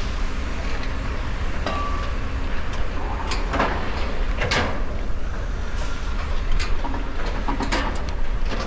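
Steady low rumble with about half a dozen sharp, irregularly spaced metallic clicks and knocks, typical of climbing gear and hands or boots striking a crane's steel ladder and frame.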